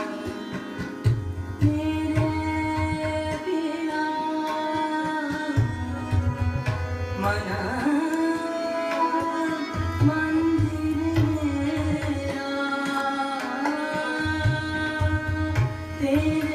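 A bhajan (Hindustani devotional song) in Raag Bhairavi, sung in long held notes that glide between pitches over low tabla strokes.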